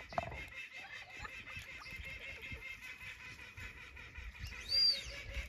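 Ducks in a pen giving a few soft calls over a steady high-pitched background drone. A short, high, arching chirp near the end is the loudest sound.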